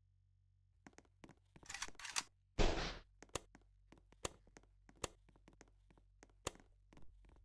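Bladeless ceiling fan motor giving a faint, steady low hum, with a string of light clicks and knocks over it and one louder thump with a rustle a little under three seconds in.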